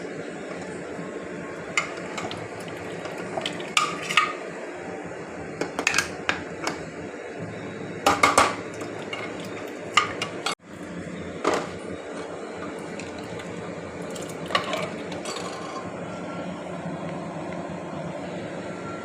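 Metal kitchen utensils and cookware clinking and knocking in irregular clusters over a steady background hum.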